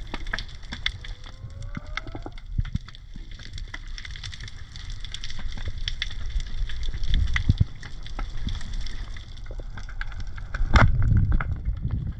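Underwater ambience: a dense, irregular crackle of many small sharp clicks over a low rumble of moving water. A louder low rush with a sharp click comes near the end.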